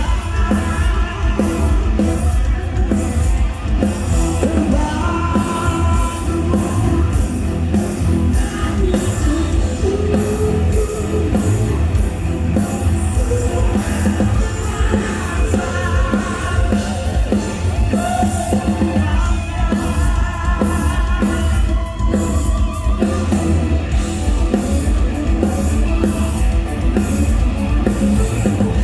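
Rock band playing live: a singer over drum kit and distorted guitars, loud and steady.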